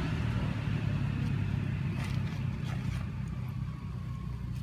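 A motor vehicle's engine running off-picture: a steady low hum that slowly fades, with a few faint clicks over it.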